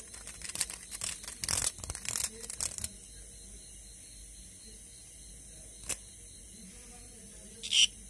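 Green cicada being handled, giving a run of rough, irregular buzzing bursts over the first three seconds, then a single click and one short harsh burst near the end: the broken distress buzz of a cicada held between fingers.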